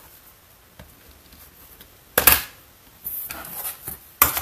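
A clear acrylic quilting ruler and cutting tools handled on a cutting table: a loud short knock about two seconds in, light rustling, then sharp clacks near the end as the ruler is picked up.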